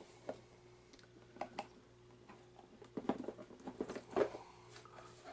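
A cardboard board-game box being handled on a wooden tabletop: a few light taps and knocks, then a busier stretch of scraping and rustling about three to four seconds in as it is turned over.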